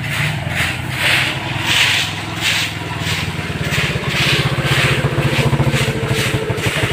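A small step-through motorbike engine puttering at low speed as it pulls up close, then idling with an even, rapid beat. A rustling hiss recurs over it every second or so.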